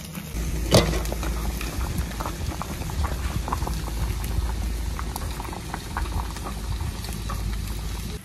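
A metal pot of vegetable soup boiling hard over an open wood fire, bubbling steadily with many small pops over a low rumble. There is one sharp, loud pop about a second in.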